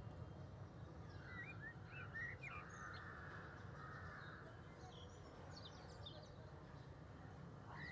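Faint outdoor ambience: birds chirping in short rising calls, a cluster of them in the first couple of seconds and a few higher ones later, over a steady low background hum.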